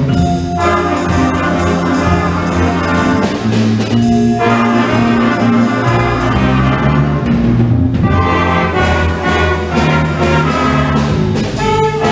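Middle school band playing live, brass to the fore, with sustained chords and a moving melody.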